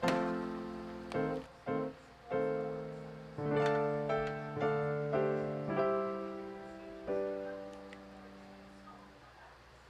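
Background piano music: a slow run of chords, each struck and left to ring out, the last one fading away near the end.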